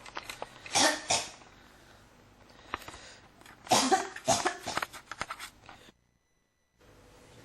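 A person coughing in bouts: two hard coughs about a second in, a lighter one a little later, then a run of several coughs around four seconds in.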